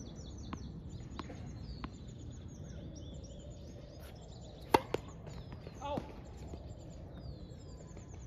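A tennis ball bounced three times on a hard court, then served: the racket strikes the ball with a loud, sharp crack about four and a half seconds in, with a lighter knock just after and a short squeak about a second later. Birds chirp throughout.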